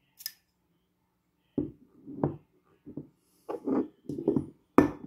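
One short spritz from an Afnan Supremacy Incense perfume atomizer, followed by a run of quick nose sniffs at the sprayed wrist, the loudest and sharpest near the end.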